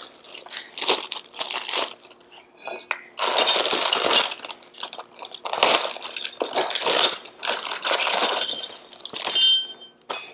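Plastic hardware bag crinkling as it is cut open with a utility knife and handled, then small metal parts (bolts, pins, brackets) tumbling out and clinking onto the concrete floor near the end.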